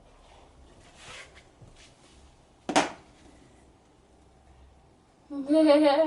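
A small plastic figure magnet clicking onto a refrigerator door: one sharp click about three seconds in, after a soft rustle. Near the end a child's voice holds a wavering note.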